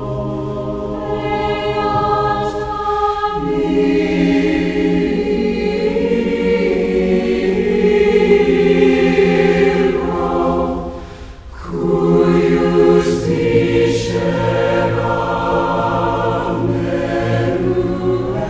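A choir singing slow, sustained chords as background music, with a brief break about eleven seconds in.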